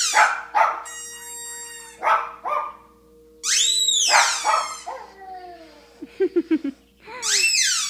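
Boxer puppy barking in a string of high-pitched yips and whines, each rising and falling in pitch and each under a second long. A quick run of four lower pulses comes a little after six seconds in.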